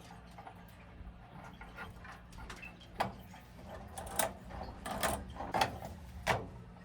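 A series of sharp mechanical clicks and knocks, about five spread over the second half, over a steady low hum.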